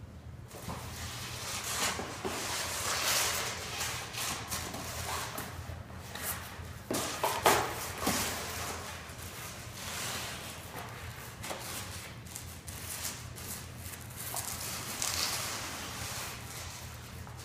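Two Norfolk terriers tearing and chewing at cardboard boxes and paper packaging: a continuous crackle and rustle of cardboard and paper with many small sharp clicks, loudest about seven to eight seconds in, along with scuffling of paws on a hard floor.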